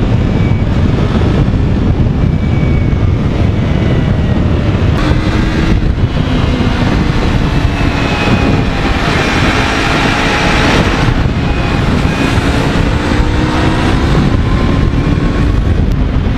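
Sport motorcycle ridden fast: heavy wind rush on the camera microphone, with the engine's note running underneath and sliding up and down in pitch. The sound swells for a couple of seconds around the middle.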